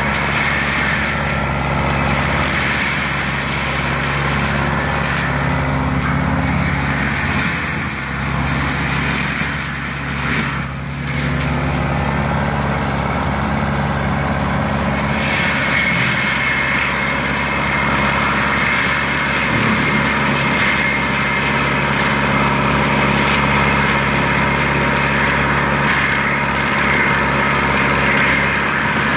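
Lamtrac LTR6125 forestry mulcher's diesel engine running steadily under load while its Denis Cimaf 180D mulching head shreds brush. The level dips briefly about ten seconds in, and a steady high whine joins about halfway through.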